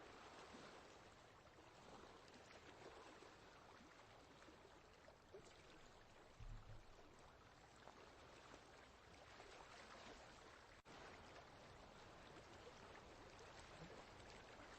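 Faint, steady running water, like a small stream trickling and splashing, with a brief low thump about six and a half seconds in and a momentary break in the sound near eleven seconds.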